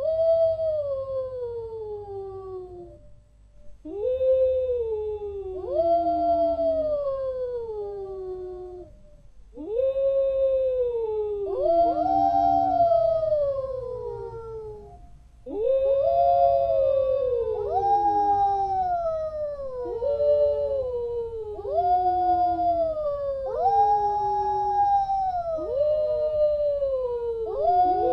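Wolves howling: a run of long howls, each rising quickly and then sliding slowly down in pitch. From about ten seconds in, two or more voices howl over one another in chorus.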